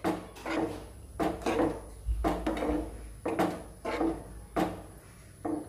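A spatula scraping and knocking against a nonstick frying pan as thick ragda is stirred, about two strokes a second.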